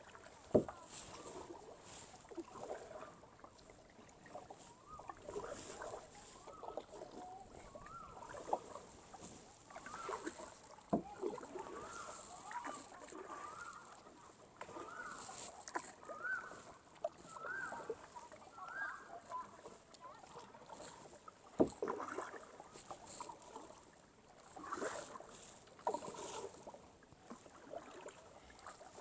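Kayak paddle strokes dipping and splashing in calm water, with a few sharp knocks of the paddle against the hull. Through the middle a bird calls in a series of short repeated notes.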